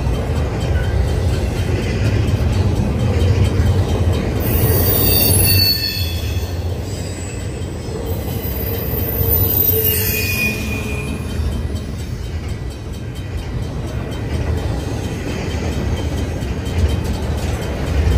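Double-stack intermodal freight train rolling past at speed, a steady low rumble of wheels on rail. High wheel squeal rises over it about five seconds in and again around ten seconds.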